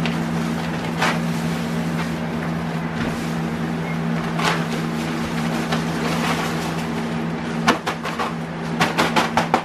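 Play sand pouring from its bag into a plastic kiddie pool, a steady hiss over a constant motor hum. Near the end, a quick run of sharp crinkles as the bag is shaken out.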